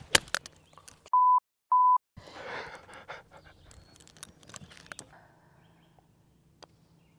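A sharp strike of a golf club into bunker sand. About a second later come two short, steady censor beeps with dead silence around them, bleeping out a word, and then a brief burst of noise.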